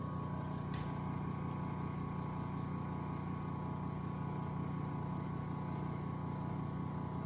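Small electric motor running steadily with a hum, spinning the home-made turbine impeller of a mini dust collector. Its suction pulls weakly, which the builder thinks could be down to the motor's low speed.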